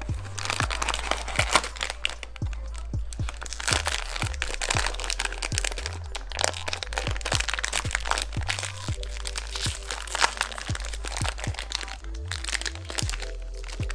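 Packaging wrapper crinkling and crackling as it is handled and torn open, over background music with a steady beat; the crinkling stops about twelve seconds in.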